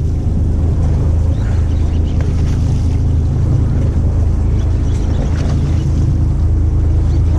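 Fishing boat's engine running at a steady low hum, with wind and sea noise over it.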